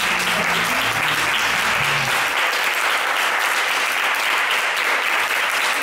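Audience applauding steadily, a dense clatter of many hands clapping at once. Low music notes underneath stop about two seconds in.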